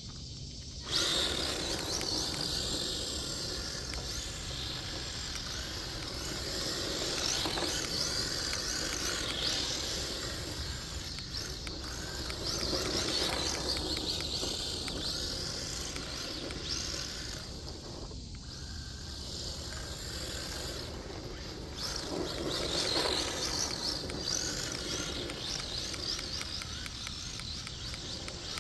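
Redcat Lightning STK radio-controlled drift car running, its electric motor giving a high whine that rises and falls over and over as it is revved through drifts.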